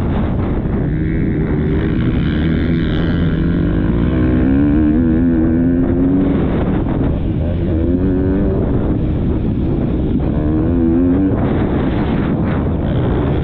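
Motocross bike engine heard through a helmet-mounted camera buried in wind buffeting, the throttle opened and closed as it races. Three times the engine pitch climbs and wavers, then drops back.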